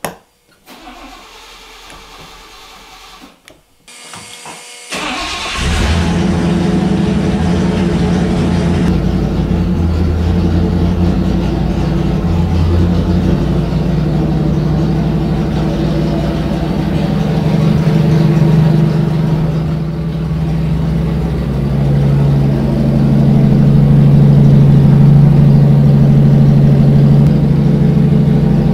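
Chevrolet 327 small-block V8 on an engine dyno, breathing through cast-iron exhaust manifolds, starts up about five seconds in and settles into a steady fast idle of around 1,350 rpm to warm up.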